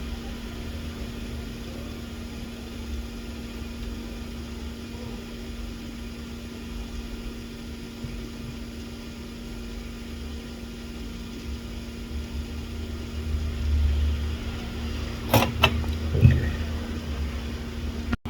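Steady electrical hum with an uneven low rumble from workbench equipment during soldering. The rumble swells near the end, and a few sharp clicks follow.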